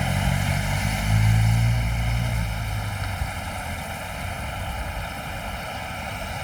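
A vehicle's engine runs as it crosses the flooded ford, loudest about a second in and fading out by about three seconds, over the steady rush of the river.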